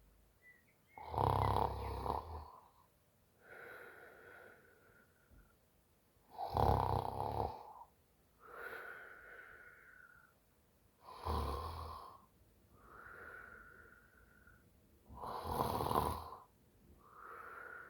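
A woman snoring in her sleep after a few drinks: four loud snores about every four and a half seconds, with a softer, whistling breath between each.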